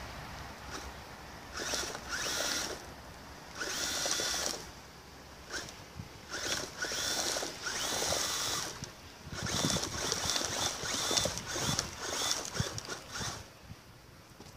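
An SST SAISU XRD 1:9-scale RC rally car's 3300 kV brushless motor whining in repeated throttle bursts, with its tyres scrabbling on loose dirt. The bursts come every second or two and die away near the end.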